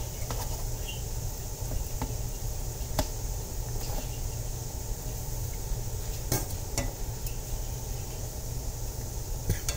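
Pot of baking soda water boiling steadily on a stovetop for a pretzel bath, with a few light clicks and clinks scattered through.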